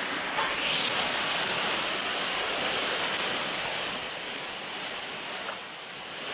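Liquid pouring and sloshing into a large aluminium pot of rice, with a light clink or two from a utensil against the pot.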